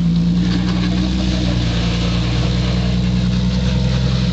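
Turbocharged Jeep Wrangler TJ engine running at a steady, unchanging pitch under load as the Jeep crawls up a sandstone rock ledge.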